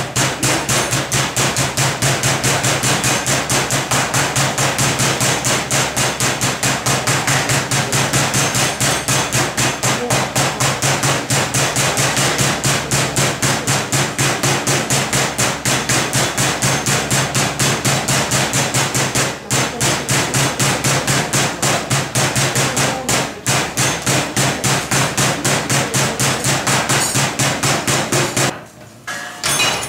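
Wooden meat mallet pounding slices of pork loin on a cutting board: a rapid, even run of blows that pauses briefly near the end.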